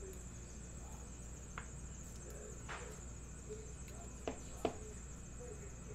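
Trading cards being handled: a few light clicks and snaps of card stock and plastic holders, the last the sharpest, over a steady faint high-pitched whine.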